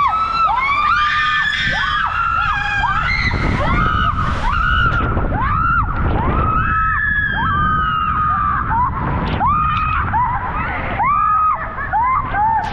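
Two women screaming and whooping again and again while riding an inner tube down a water slide. The high-pitched screams come about one or two a second over the low rush of water sliding under the tube.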